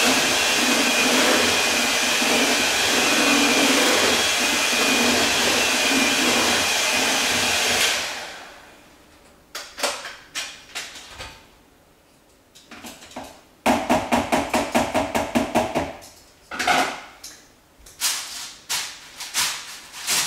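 Electric hand mixer running steadily as it stirs batter in a bowl, switched off about eight seconds in. It is followed by scattered knocks and a quick run of taps, about six a second.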